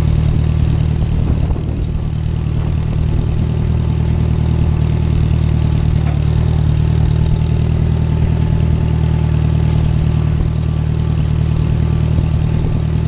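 Small farm tractor's engine running at a steady speed while driving.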